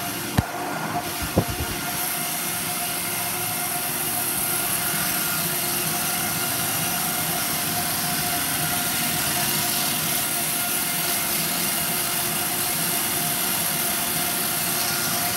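Motorized treadmill running steadily: a constant motor whine over the hiss of the moving belt. Two sharp knocks come about half a second and a second and a half in.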